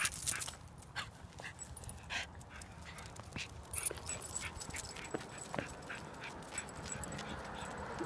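Schipperke whimpering and whining in short, scattered cries: a dog upset at being left behind.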